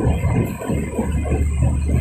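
Local passenger train running, with a steady low hum and an irregular rattle and clatter of the carriages on the track.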